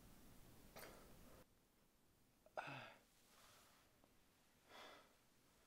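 Near silence: faint room tone that drops lower about a second and a half in, with a few soft breaths about a second in, near the middle and near the end.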